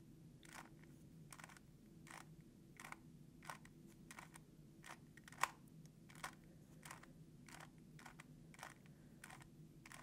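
Faint clicking of a GAN 3x3 speed cube as its layers are turned quarter by quarter through the repeated R U R' U' algorithm, about two clicks a second.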